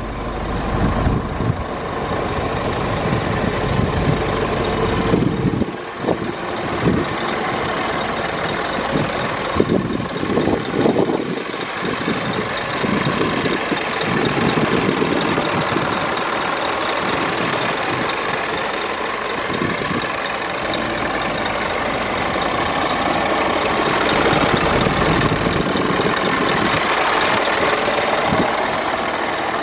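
Scania R 490 truck's 13-litre straight-six diesel engine idling steadily.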